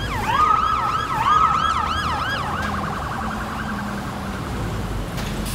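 Police siren in a fast yelp, with quick up-and-down pitch sweeps over a steadier held tone, fading gradually over the last few seconds. A single sharp click comes near the end.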